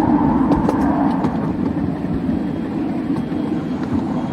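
7¼-inch gauge miniature railway train running along the track, heard from aboard: a steady rolling noise of wheels on rail, with a few clicks in the first second and a half.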